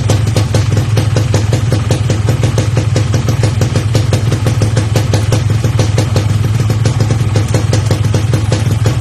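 Yamaha RX-King single-cylinder two-stroke engine idling steadily through a 'ngorok' aftermarket exhaust, the deep, snoring-style tone that the exhaust is built to give, with rapid even firing pulses and no revving.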